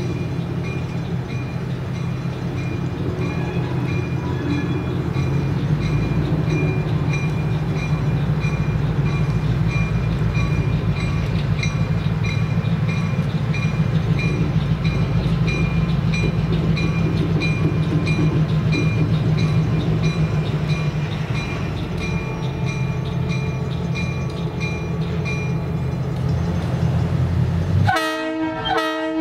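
Diesel locomotive engine running as it leads a passenger train slowly toward the listener, its note growing stronger about five seconds in, with the locomotive's bell ringing steadily. The bell stops near the end and the horn sounds a chord of several notes.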